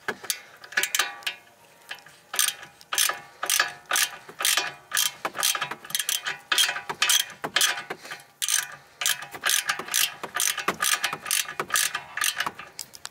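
Ratchet wrench clicking in quick runs of clicks with short pauses between strokes as a socket on an extension turns the nut on a car's rear toe arm bolt.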